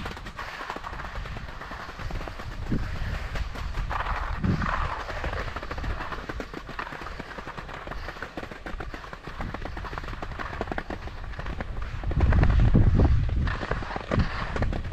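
Skis sliding and chattering over spring snow while being towed up a T-bar surface lift, with dense, irregular clicking and rattling. A louder low rumble comes in about twelve seconds in.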